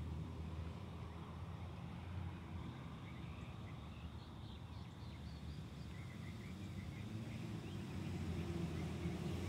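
Outdoor background: a steady low rumble of distant traffic, growing a little louder near the end, with a few faint high chirps in the middle.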